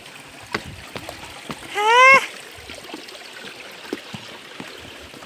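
A person's short, high call, rising in pitch, about two seconds in, over the steady rush of a small stream. Scattered footsteps crunch on the stony path throughout.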